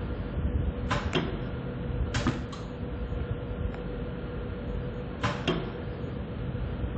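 Sewing machine stitching in three brief bursts, about a second, two seconds and five seconds in, over a steady motor hum.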